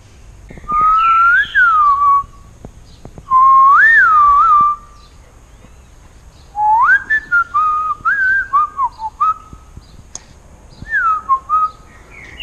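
A person whistling a tune loudly: four short phrases of sliding and stepping notes with pauses between them.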